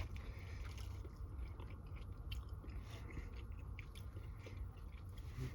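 A person chewing a mouthful of linguine, with scattered small clicks over a steady low hum.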